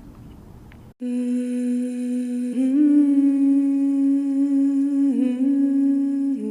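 Humming: a few long held notes starting about a second in, with small steps in pitch partway through.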